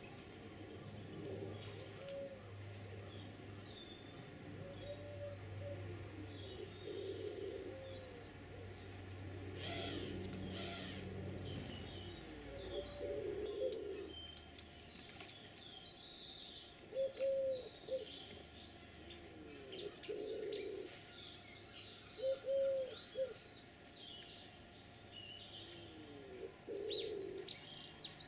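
Garden birdsong: small songbirds chirping and twittering high up, while a pigeon coos low in a short phrase repeated every few seconds. A faint low hum underneath fades out about halfway.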